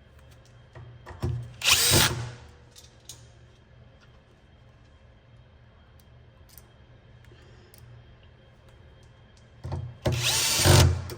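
Powered screwdriver with a number 2 Phillips bit driving screws into metal bus bars, in two short runs of about a second each, one about a second in and one near the end, with small handling clicks between.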